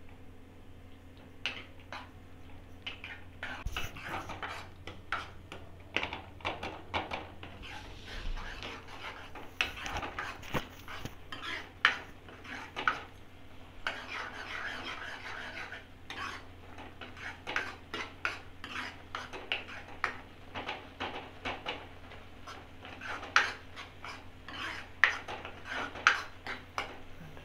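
Steel ladle stirring and scraping fried mushroom pieces in thickening masala gravy in a kadai, with irregular clinks and scrapes against the pan.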